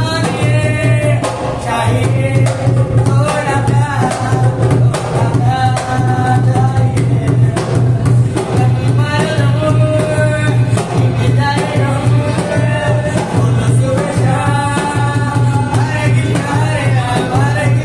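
Live Rajasthani folk music: a man singing in a high voice to harmonium and dholak, with the harmonium holding a steady drone under a fast, busy drum rhythm.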